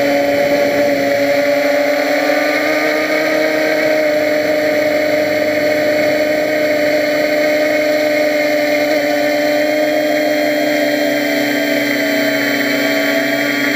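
Quadcopter's electric motors and propellers humming steadily in flight: several steady tones with only a slight waver in pitch.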